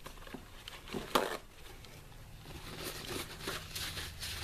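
Dry paper towel crinkling and rubbing as vape tank parts are wiped clean, with one sharp click about a second in.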